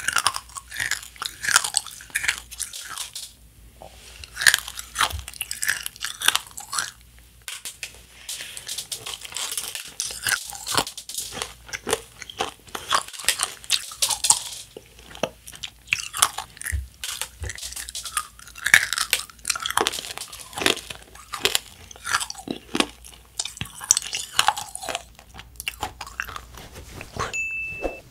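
Close-miked crunching and chewing of Nerds Rope: the tiny hard Nerds candies crackle between the teeth around a chewy gummy core, in dense, irregular crunches.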